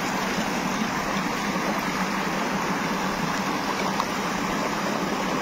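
Water rushing steadily over a low concrete weir and through a shallow, rocky stream bed.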